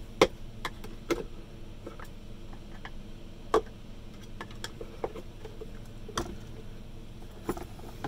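Scattered clicks and taps of a hand tool working at the brass terminals on a Henry vacuum cleaner's black plastic motor cover, prying the brass fittings off. The loudest click comes about three and a half seconds in.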